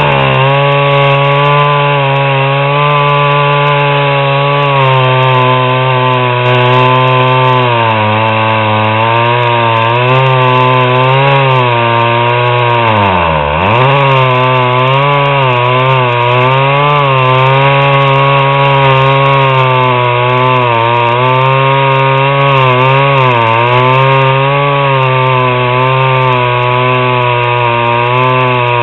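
Small Stihl 009 two-stroke chainsaw at full throttle, cutting through a thick acacia log in one long cut. The engine sags a little under load now and then, and about halfway through it bogs down sharply and picks back up.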